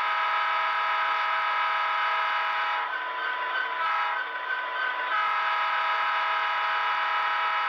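Tsunami sound decoder in an HO-scale Athearn SD70M model playing a diesel locomotive air horn through its small onboard speaker: a long held blast, broken about three seconds in by a choppier stretch of short horn notes lasting about two seconds, then held long again.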